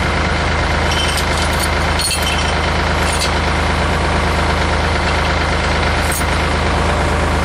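Farm tractor engine idling steadily, with a few short clinks over it.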